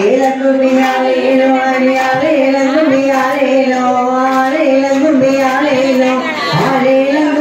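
A woman singing a Tamil kummi folk song through a microphone and loudspeaker, in long, steady held notes. Faint handclaps from the kummi dancers come in under the voice.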